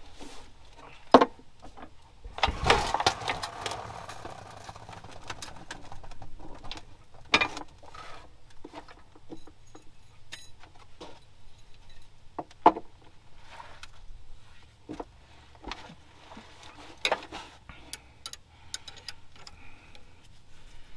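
Hand tools and metal car parts clinking and knocking now and then, with a longer noisy stretch of handling about three seconds in.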